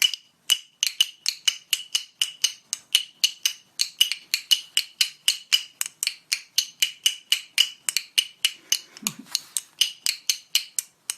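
Rapid, even tapping on a hard object that rings briefly with each tap, about four taps a second.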